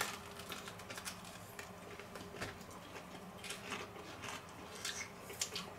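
Two people quietly chewing fried apple fritters: faint, scattered small clicks and mouth smacks over a faint low steady hum.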